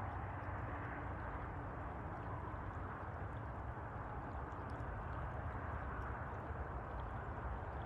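River water rushing steadily, with a low steady rumble underneath.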